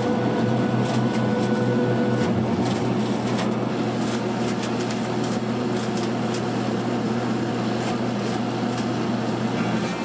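Machinery running steadily: a constant low hum with a noisy wash over it and faint scattered clicks. A higher tone drops out a little over two seconds in.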